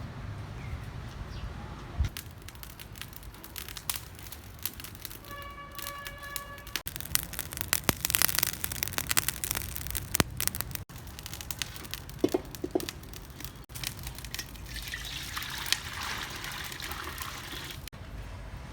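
Water splashing and pouring, with irregular knocks and clicks of handling, while a raw shark is being prepared.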